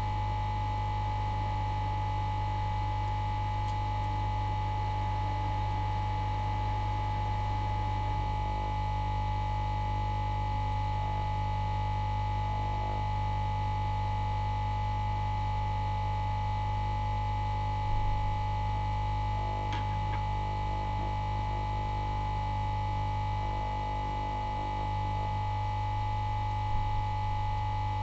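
ToolCraft hot air rework station blowing on a circuit board while heating it to lift a component: a steady hum with a high whine held throughout, and a couple of small knocks partway through.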